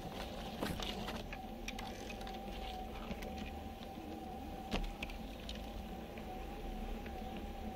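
G-scale LGB model train running along garden-railway track, heard from on board: a steady motor-and-gear whine with a slight waver over the rumble of the wheels. Scattered clicks of rail joints and leaves brushing past, with two louder knocks, one under a second in and one about five seconds in.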